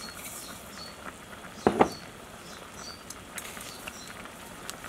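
Pot of soup simmering on a burner: a steady hiss with small scattered pops. A sharp double knock comes a little under two seconds in.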